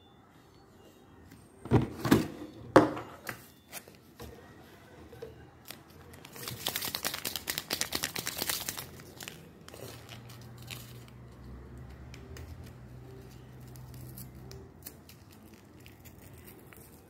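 Handling a plastic jar and a paper sachet: a few sharp knocks about two seconds in, then about three seconds of rapid crinkling and tearing, as a small Sea-Monkeys egg packet is torn open. A faint low hum follows.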